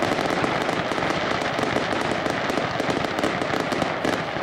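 Aerial fireworks display going off: a dense, unbroken run of many rapid sharp pops and cracks from shells bursting overhead.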